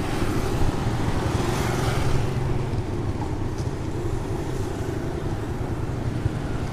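A road vehicle running steadily on the move: an even low engine hum with road noise.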